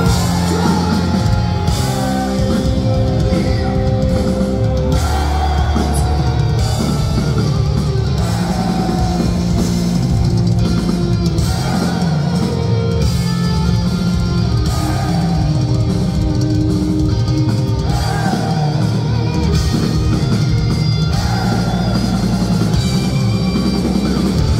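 Loud live heavy metal band playing, with electric guitars and a drum kit.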